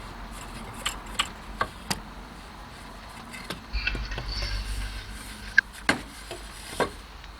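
Scattered light clicks and knocks from handling the freshly machined softwood workpiece on the small CNC router, with a brief low rumble a little under halfway through; the router spindle is stopped.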